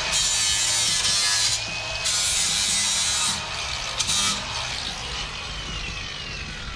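Angle grinder with an 80-grit flap disc grinding the cut metal edge of the front bumper in three bursts, the last one brief, smoothing it so it is not sharp. After the last burst, the grinder's whine falls away as the disc spins down.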